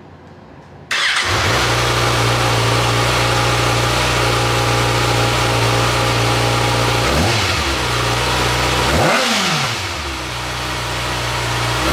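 2019 Kawasaki Ninja ZX-6R inline-four on its stock exhaust, cold-started about a second in and then idling steadily. In the second half it is revved briefly three times, the pitch rising and dropping back each time.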